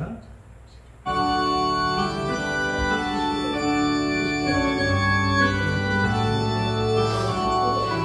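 Organ playing the slow introduction to an offertory hymn in sustained chords that change step by step, starting about a second in after a brief quiet.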